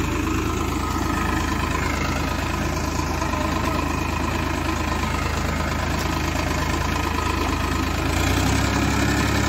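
Tractor diesel engine running steadily under load, with its low tone getting louder about eight seconds in.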